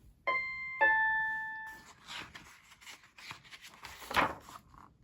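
Two-note ding-dong doorbell chime: a higher note, then a lower one that rings on and fades over about a second.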